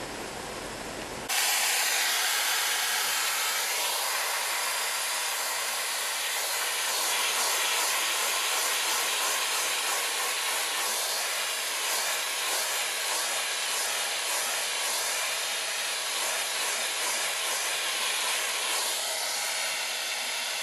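Vacuum cleaner running steadily, hoovering dust out of a heat pump's air filters, a rushing hiss that starts suddenly about a second in.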